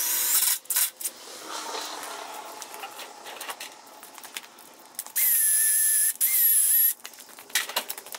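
Cordless drill run in two short bursts of about a second each, a steady whine, around five to seven seconds in, while driving a self-tapping screw into the steel trailer tongue. Scattered clicks and knocks of tools being handled come before it.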